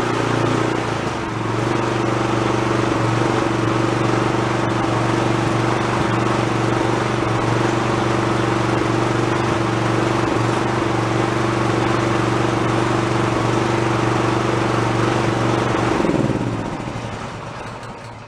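Honda GX engine on a pressure washer running steadily at constant speed, with a brief change in speed about a second in. Near the end it stops and winds down to a halt.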